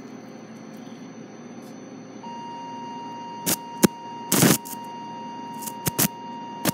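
Electrosurgical generator's activation tone, a steady beep, comes on about two seconds in while the electrocautery pencil is live. Over it come several sharp crackles and one short hiss as the tip sparks against the simulated tissue.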